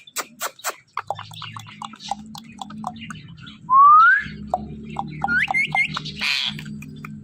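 Pet ringneck parrot clicking and chirping, then a loud rising whistle about four seconds in. A few quick rising whistles and a short harsh squawk follow, over a low steady hum.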